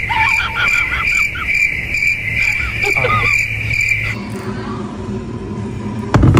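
A steady high-pitched chirping tone, pulsing a little over twice a second, with a few short squeaky sounds over it, stops suddenly about four seconds in. An electric can opener's motor hums in its place, and a single sharp click comes near the end.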